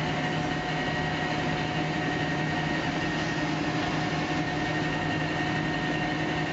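Steady mechanical hum, made up of several unchanging tones over a low drone, with no change in speed or pitch.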